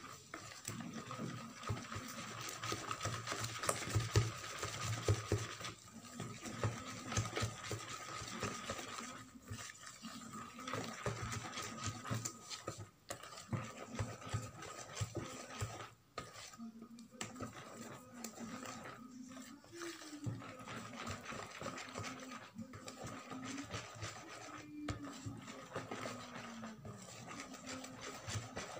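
Hand wire whisk beating thick cake batter in a plastic bowl: continuous rapid clicking and scraping of the wires against the bowl and through the batter, with a couple of brief pauses.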